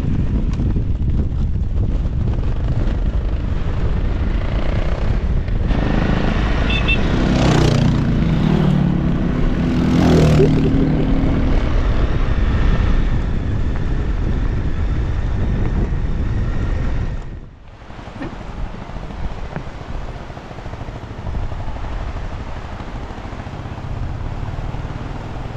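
Honda CRF 250 Rally single-cylinder motorcycle riding on a rough dirt road, engine running under heavy wind buffeting on the microphone, with the engine revving up a couple of times around the middle. About two-thirds of the way in the sound drops abruptly and a quieter, steady running follows.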